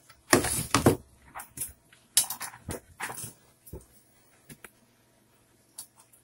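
Handling noise as a digital multimeter and its test leads are brought out onto the workbench: a loud rustle and clatter near the start, several shorter scrapes and knocks, then a few light clicks.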